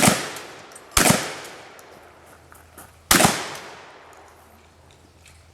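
Three gunshots, the second about a second after the first and the third about two seconds later, each followed by a long echoing tail.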